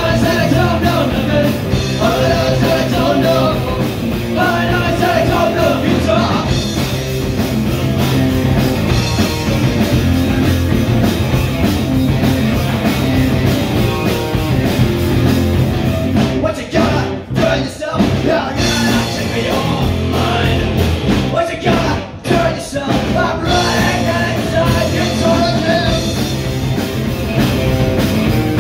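Live rock band playing loud: electric guitars, drums and a sung vocal. The music briefly drops out twice, about 17 and 22 seconds in, before the band comes back in.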